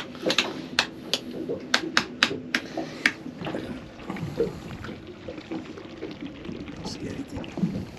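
Helm switches clicking off one after another as the boat's lights are switched off: about nine sharp clicks in the first three seconds, then only a quieter background.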